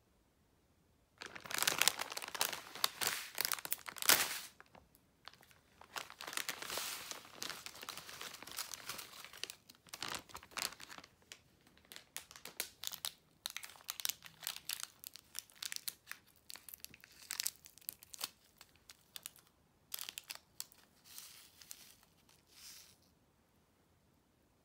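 Cellophane sweet wrappers and foil popping-candy sachets crinkling in irregular bursts as they are handled and a sachet is torn open. The crinkling starts about a second in and is loudest in the first few seconds.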